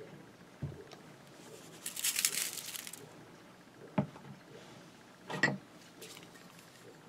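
A seasoning shaker shaken over food for about a second, a sprinkling rattle, with a few short knocks around it from handling on an aluminium foil pan.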